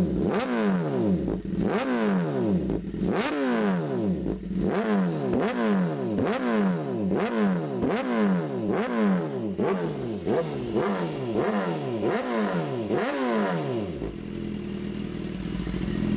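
BMW S1000RR inline-four engine revved through an SC-Project exhaust in quick repeated blips, about one a second, each rev climbing sharply and falling back. Near the end it settles to a steady idle.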